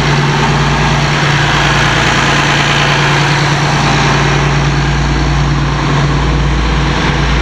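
Cummins QSC marine diesel, a straight-six, running steadily at idle, heard loud and close with a strong low hum.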